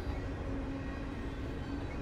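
CSX double-stack intermodal freight train rolling past, a steady low rumble of wheels on rail with a faint hum that comes and goes.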